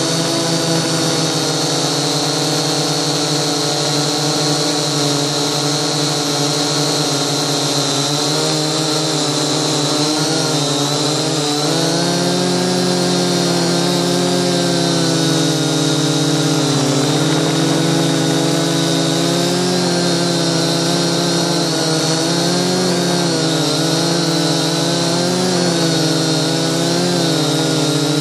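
Syma toy quadcopter's small electric motors and propellers buzzing steadily in flight, heard close up from the phone carried on the drone. The pitch wanders slightly up and down.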